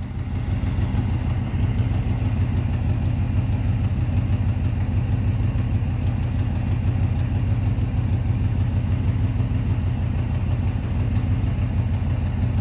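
1966 Chevy C20 pickup's 383 stroker V8 idling steadily.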